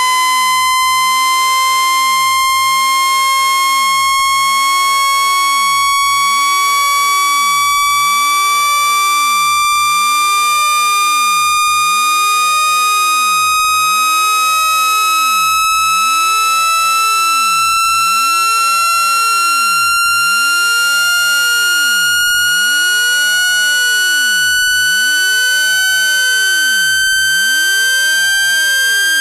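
A synthesized speaker-cleaning tone, rich in overtones, held at a steady loudness and gliding slowly and evenly upward in pitch. It is meant to shake sand out of a speaker.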